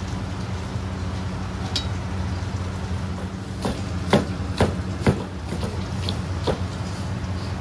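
Cleaver knocking on a wooden chopping block while cutting vegetables and red chillies: a single stroke about two seconds in, then a run of strokes about half a second apart, over a steady low hum.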